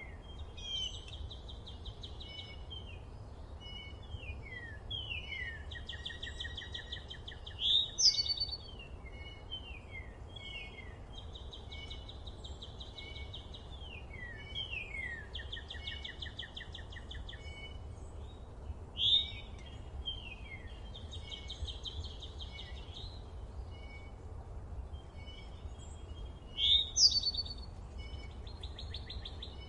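Forest birds singing and chirping: repeated falling whistled notes and short buzzy trills, with three louder sweeping calls about 8, 19 and 27 seconds in, over a steady low rumble.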